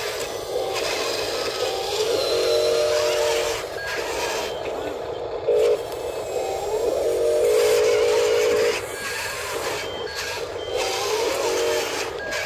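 Small electric motors and gearboxes of radio-controlled model construction machines whining in bursts of a second or two as an RC excavator swings its boom and an RC crawler bulldozer drives, over a steady hiss. One short, louder burst comes about five and a half seconds in.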